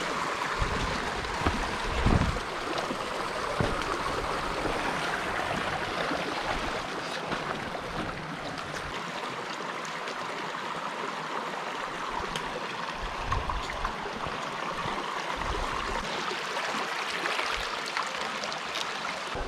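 Mountain creek water running over rocks: a steady rushing hiss, with irregular low thumps, most in the first few seconds.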